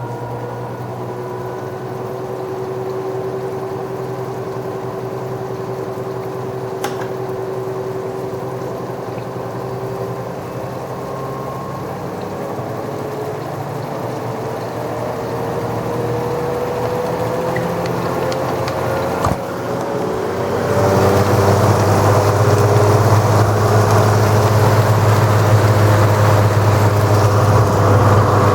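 LG washing machine in its spin cycle: the motor whine rises slowly in pitch as the drum speeds up. About two-thirds of the way through it gets clearly louder, with a deep hum and rumble, as the drum spins hard and unbalanced.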